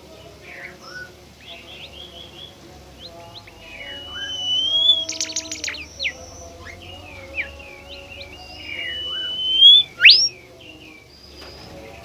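Bimoli songbird singing: a varied run of short whistled notes and chirps, with two long rising whistles, a brief buzzy rattle about five seconds in, and a loud quick upward-sweeping whistle about ten seconds in.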